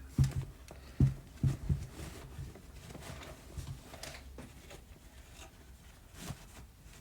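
A power supply being unpacked from its cardboard box: several dull knocks and bumps in the first two seconds, then light rustling of packaging and small clicks.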